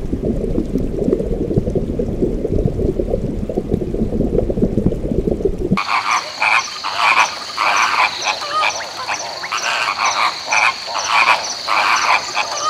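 A low rumbling water noise, then from about six seconds in a flock of flamingos calling: many short, croaky honks overlapping, over a steady high chirring.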